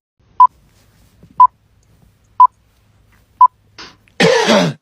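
Electronic beeps: four short, identical beeps at the same pitch, one a second, like a countdown timer. A loud burst of voice starts near the end.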